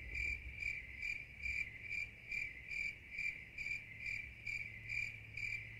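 Cricket chirping sound effect: an even, steady run of short chirps, about two to three a second, edited in as the classic 'awkward silence' gag.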